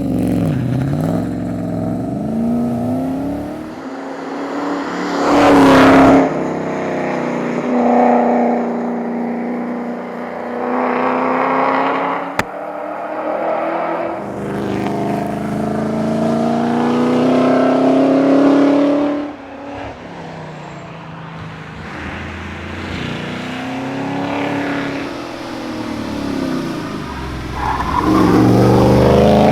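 Holden VH Commodore SS Group 3 V8 engine at full race pace, its pitch climbing under acceleration and dropping repeatedly through gear changes and lifts for corners. There is a louder rush of noise around six seconds in and a single sharp click about twelve seconds in.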